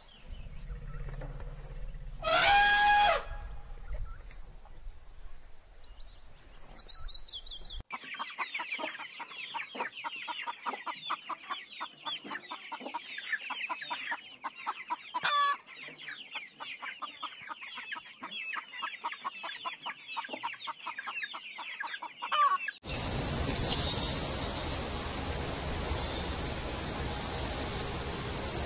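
A brief loud elephant call about three seconds in. From about eight seconds, a flock of chickens clucking and chattering for some fifteen seconds. Near the end it switches to a louder hissy background with high calls.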